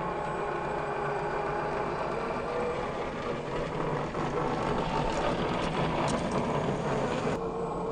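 Electric motor and gearbox of a Vanquish VS4-10 scale RC crawler whining steadily as it crawls slowly over dirt and rock. A few clicks and crunches come about halfway through.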